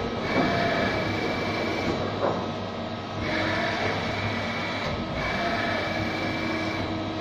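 Takisawa TC-4 CNC turning center running under power: a steady mechanical hum, with a high whine that comes in three spells of about one and a half to two seconds each.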